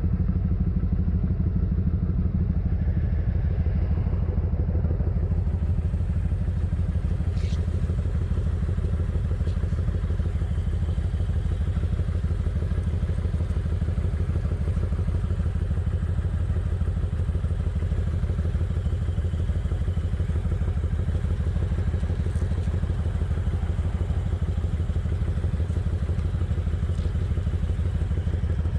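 Kawasaki Vulcan 900's V-twin engine running steadily at cruising speed, with no revving or gear changes.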